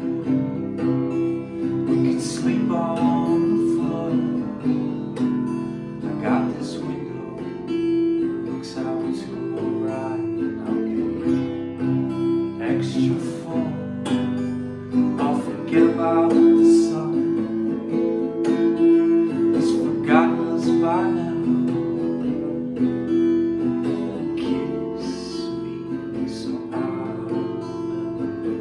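Gretsch acoustic guitar strummed in a steady rhythm, playing chords.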